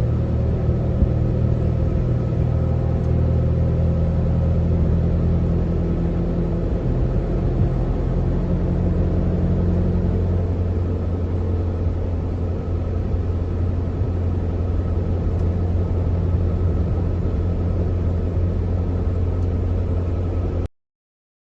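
A 4-tonne truck's diesel engine running steadily with a deep, even hum; the sound cuts off suddenly near the end.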